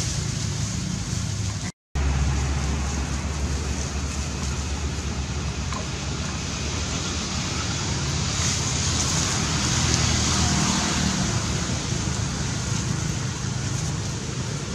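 Steady rushing outdoor noise with a low rumble underneath, cutting out completely for a moment about two seconds in.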